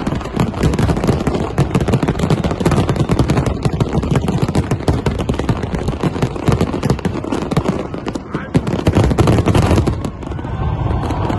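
Fireworks going off in a rapid, unbroken barrage of bangs and crackles that stops abruptly about ten seconds in, leaving crowd voices near the end.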